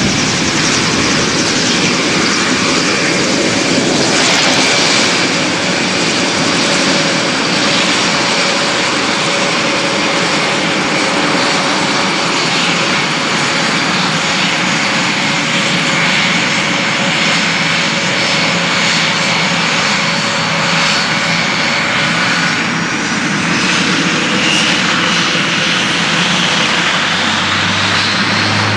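The four TP400 turboprop engines of an Airbus A400M Atlas running loud and steady as the aircraft taxis on the runway, a dense propeller-and-turbine noise with a steady whine. Over the last few seconds a whine rises in pitch.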